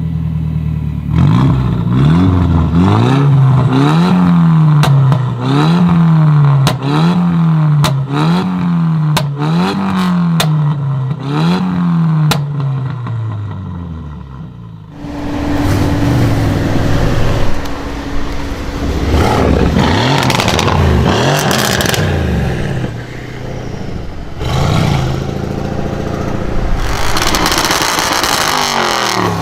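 Car engine with a modified exhaust revved in quick repeated blips, about one a second, with sharp exhaust pops and crackles between the revs. About halfway through, another modified car revs up and down in longer, less regular sweeps.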